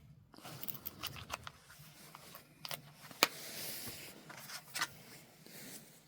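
Handling of the multitool's box contents and sheath: scattered light clicks and rustling, with one sharp click about three seconds in followed by about a second of soft rustling.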